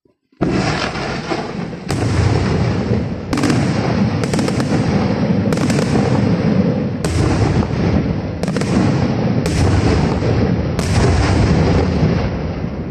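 Aerial fireworks shells launching and bursting overhead in quick succession: a string of loud bangs roughly every second, over a continuous rumbling crackle. It starts suddenly about half a second in.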